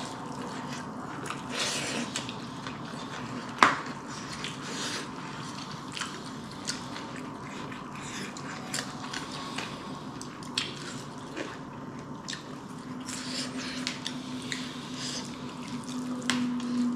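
Close-up eating sounds: chewing and squishing of wet rice and raita, with scattered small clicks like utensils or fingers against a plate, the sharpest about three and a half seconds in. A low hum comes in near the end.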